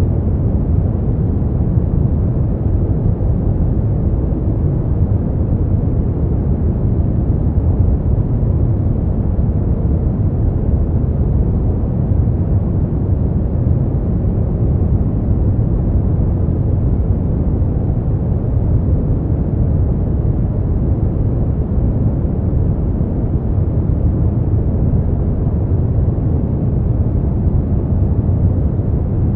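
Continuous white-noise sleep sound: an even, deep rushing with no changes or rhythm, its weight in the low end and little treble, closer to brown noise than to a bright hiss.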